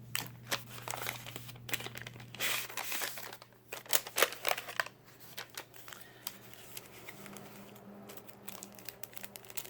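Packaging crinkling and tearing as a small gift bag is handled and opened, with irregular rustles and sharp little clicks, busiest in the first half and sparser near the end.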